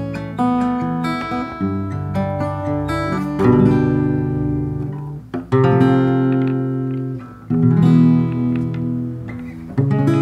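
Acoustic guitar with replica D'Addario EZ900 extra-light strings playing basic open chords, strummed and left to ring, changing chord every one to two seconds.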